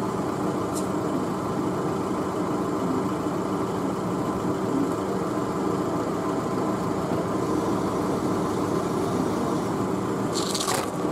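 Powered hoist running steadily with a hum as it lifts the Ford Model A engine out of the car, with a few sharp clanks near the end.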